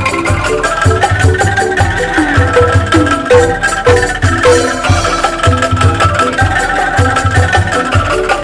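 Bamboo street ensemble playing upbeat music: bamboo angklung and calung bar instruments carry the tune over a drum kit keeping a steady beat, with a few notes bending in pitch about three seconds in.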